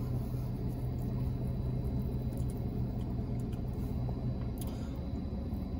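Low steady hum and rumble inside a truck cab, the hum dropping away about four and a half seconds in.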